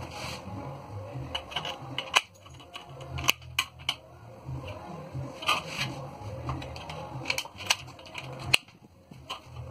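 Galvanized steel drywall channel being handled and cut with aviation tin snips: scattered sharp metallic clicks and snips, irregularly spaced, over a low steady hum.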